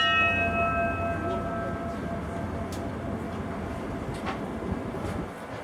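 Ship's bell tolled once, its ring fading away over a second or two, over a steady low rumble.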